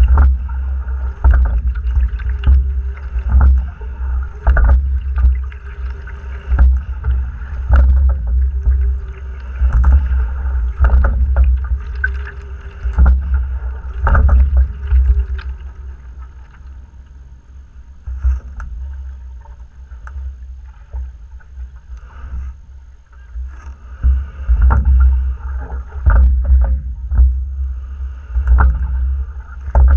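A Fluidesign single racing scull being rowed: water rushes along the hull over a low rumble on the boat-mounted microphone. Sharp knocks from the oars come a little more than a second apart, in time with the strokes. The sound eases off for several seconds past the middle, then picks up again.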